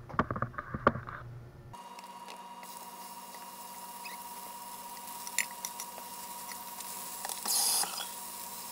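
Slices of Spam frying in a hot cast-iron skillet: a steady sizzle with scattered small crackles and pops. In the first second or two, a few knocks and clicks as slices are laid into the pan.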